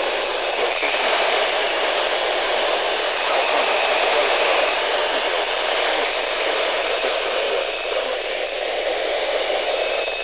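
Loud, steady hiss of static from a NOAA Weather Radio receiver, with no voice coming through: the station's signal is too weak to carry the broadcast.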